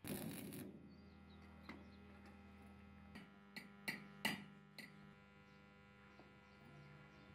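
A short crackling burst of stick-welding arc at the very start, then the steady mains hum of the arc welder, with a handful of sharp metal clinks from a steel chain and tools being handled between about two and five seconds in.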